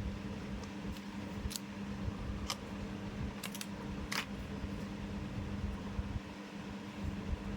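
Steady low hum with a few short, sharp clicks between about one and four seconds in.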